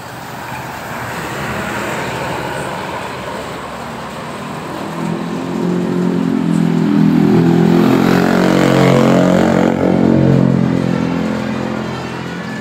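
Large tour bus's engine passing close by, growing louder to a peak about eight to ten seconds in, then easing off.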